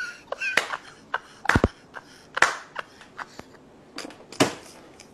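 A man laughing hard in short, breathy bursts, broken by several sharp clicks.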